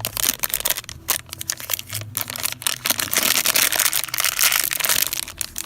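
A plastic blind bag being torn open and crinkled by hand, a dense run of crackling with many sharp clicks that grows loudest about three seconds in and stops near the end.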